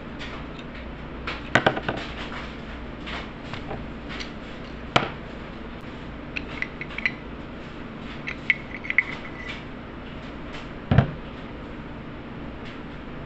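Metal clinks and knocks as an aluminum Matas 5-inch bait mold is taken apart: a wing nut is worked off its threaded stud and set down, and the plates are handled and separated. Sharp knocks come about one and a half, five and eleven seconds in, with small ringing clinks and squeaks in between, over a steady low hum.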